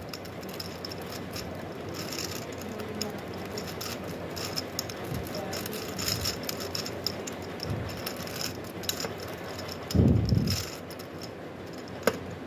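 Plastic gear cube being twisted by hand: its geared layers click and rattle as they turn. About ten seconds in there is a brief, louder low sound.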